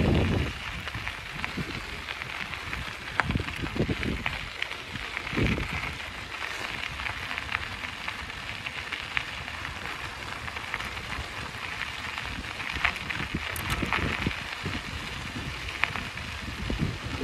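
Bicycle rolling along: a steady crackling hiss of the tyres on the road surface with scattered sharp ticks. Wind rumbles on the microphone, dropping away about half a second in and swelling again near the end.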